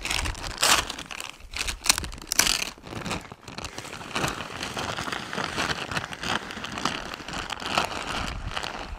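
A paper feed bag crinkling as it is opened and handled. About three seconds in, chicken feed pellets begin pouring from the bag into a broadcast spreader's hopper in a steady grainy rush.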